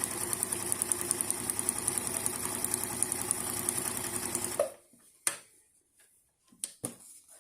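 Brother Riviera 110 sewing machine running a test seam at a fast, even stitch rhythm, with its thread-tension dial just set to 4, and stopping abruptly a little over halfway through. A few sharp clicks follow.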